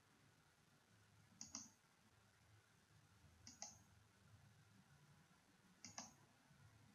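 Computer mouse button clicking three times, about two seconds apart. Each click is a quick pair of snaps, over a faint low hum.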